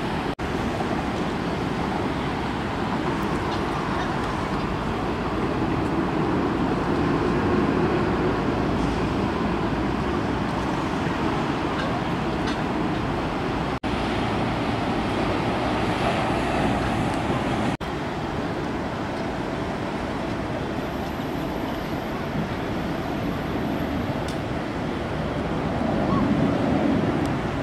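Steady noise of jet airliner engines at an airport as aircraft taxi at a distance, broken by three momentary dropouts.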